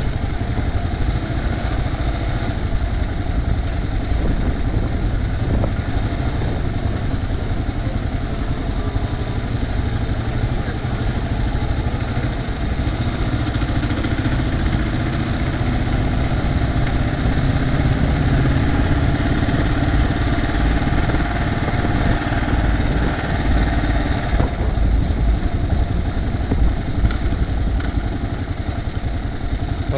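Kawasaki KLR650's single-cylinder four-stroke engine running steadily at low speed, heard from the rider's seat as the motorcycle filters slowly between lines of stopped cars.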